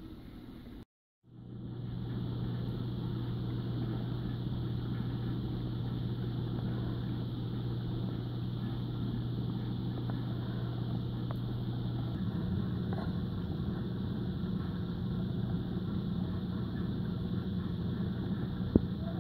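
Reef aquarium's circulation pumps running: a steady electric hum with a faint hiss. It drops out briefly about a second in, the hum shifts a little higher in pitch after the middle, and a single sharp click sounds near the end.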